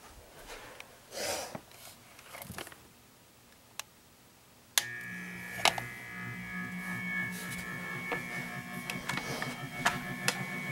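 Handling rustles and a click, then about five seconds in the motor of a home-built spinning persistence-of-vision display starts up suddenly and runs with a steady whine and a fast, even pulsing. The pulsing is the stand rocking back and forth, because the spinning arm's centre of mass is not perfectly over the axle and one foot does not seat properly.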